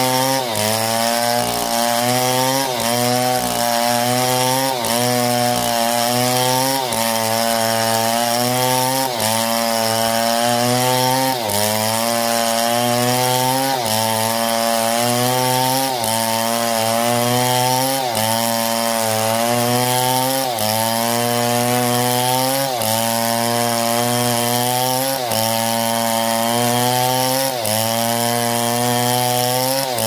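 Chainsaw running under load, cutting trembesi wood; its engine pitch sags and recovers about every two seconds as the chain bites into the cut and eases off.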